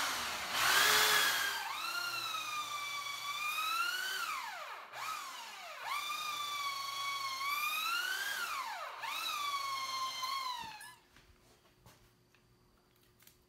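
Cordless drill driving a long auger bit through a thick wooden beam: the motor whine wavers in pitch, sagging sharply twice under load and picking back up. It is loudest and roughest in the first second or so and stops shortly before the end.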